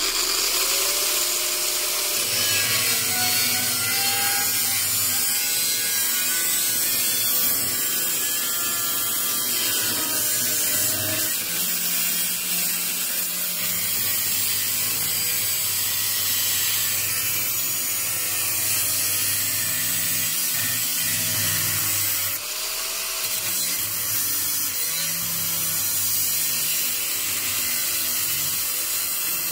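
Angle grinder with a cutting disc cutting through the steel rear panel between the cabin and boot of a BMW E46 saloon. It runs steadily with a high hiss, and its whine sags and recovers in pitch as the disc bites, with a brief let-up about 22 seconds in.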